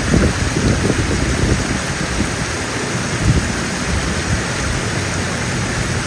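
Steady rush of water pouring over a small weir or waterfall, with a low rumble underneath.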